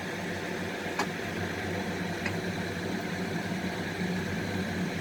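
Kitchen exhaust fan running with a steady hum, over the faint sizzle of egg-coated bread frying in butter in a pan. A sharp click about a second in and a softer one about two seconds later.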